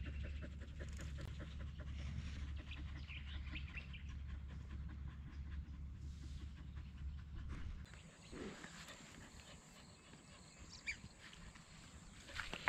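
Dogs panting faintly after running, over a low steady rumble that stops about eight seconds in.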